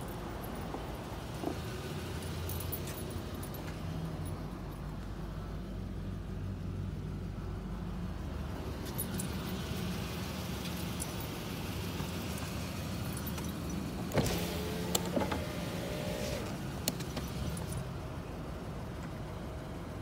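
Steady low hum around a parked car, with a cluster of clicks and knocks about fourteen seconds in as someone gets into the driver's seat through the open door.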